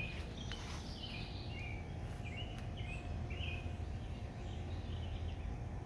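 Small birds chirping in short repeated phrases through the first few seconds, over a steady low outdoor rumble.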